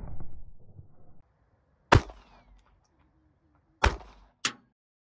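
Colt Mustang .380 ACP pocket pistol firing three shots: one about two seconds in, then two more close together near the end, about half a second apart. The tail of an earlier shot dies away at the start.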